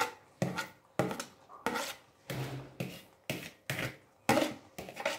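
Metal spoon scraping around the inside of a plastic bowl in short repeated strokes, about two a second, clearing the last moringa leaves out of it.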